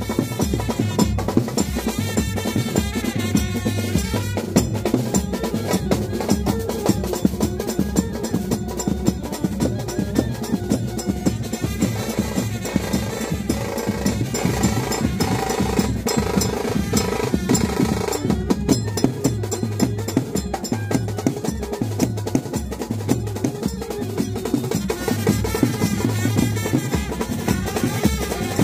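Loud wedding dance music driven by fast, dense drumming with snare rolls, with a melody line over the drums.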